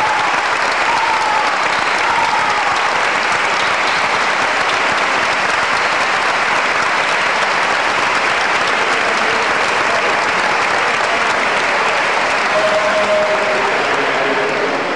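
A large crowd applauding steadily, with voices beginning to sing near the end.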